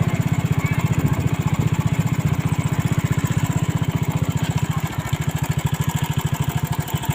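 A small engine running close by at a steady idle, a low even pulsing of about a dozen beats a second that eases slightly near the end.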